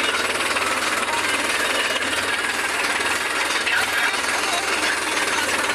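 Tractor diesel engine running under way with a steady, dense, fast rattle, heard close up from the driver's seat.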